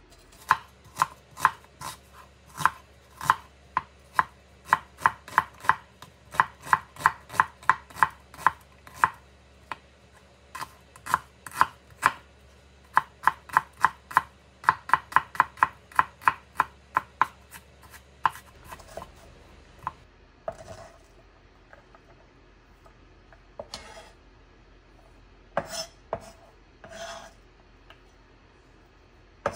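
Kitchen knife chopping onion on a wooden end-grain cutting board: quick, even strokes about three a second, with two short pauses, stopping about 18 seconds in. Then a few scattered knocks and scrapes as the knife gathers the chopped onion and tips it into a glass bowl.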